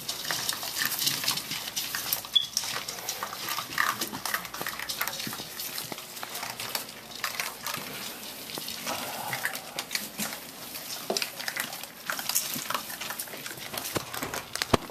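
Several puppies eating dry kibble from a bowl: a dense, irregular crackle of crunching and pellets clattering against the bowl as they nose into it.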